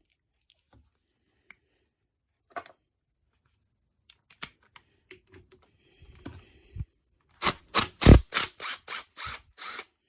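Hand tools working on a car's air suspension compressor clamped in a vise. Scattered light clicks and a short scrape come first. Then, from about seven and a half seconds in, there is a run of about nine sharp taps, roughly four a second.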